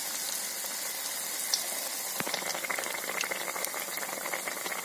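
Hot oil in a kadai sizzling and bubbling steadily with fine crackles as a ladleful of kandarappam batter deep-fries.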